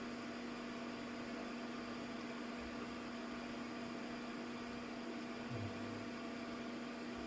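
Steady electrical hum over a background hiss, unchanging throughout.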